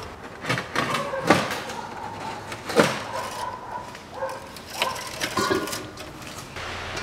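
A handful of sharp knocks and clacks of hard parts being handled under a car, with some rustling between them; the two loudest knocks come about a second and three seconds in.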